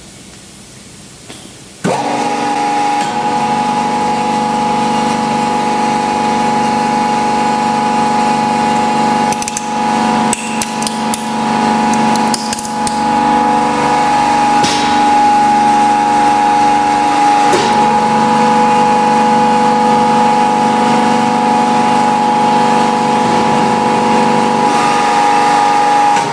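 A hydraulic press's pump motor starts suddenly about two seconds in and runs on with a steady hum and whine. A toy police car cracks and snaps as the ram crushes it, in a burst of sharp cracks from about ten to thirteen seconds in, with a couple more later.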